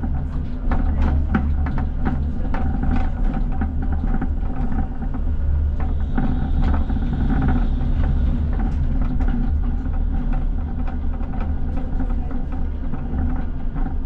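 ČKD Tatra T6A5 tram running along the line, heard from the driver's cab. The traction equipment gives a steady low hum with a few held tones. The wheels on the track make frequent irregular clicks and knocks.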